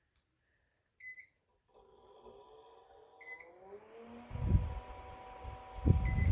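Socket fan light beeping three short high beeps as it takes remote commands, while its fan motor spins up with a rising whine. From about four seconds in, the fan's airflow rushes and buffets the microphone in gusts.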